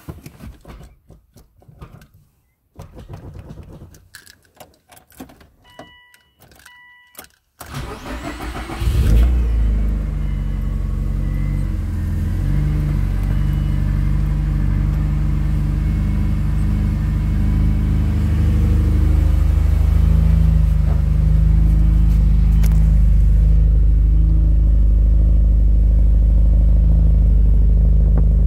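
Cold start of a heavily modified 2005 Subaru Baja Turbo's turbocharged 2.5-litre flat-four: after two short electronic beeps, the starter cranks about seven and a half seconds in, the engine catches at about nine seconds and settles into a steady, loud idle.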